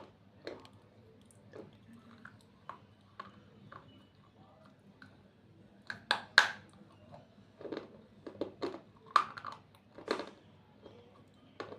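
Close-miked biting and chewing of slate: irregular sharp crunches, the loudest cluster about six seconds in and more between eight and ten seconds.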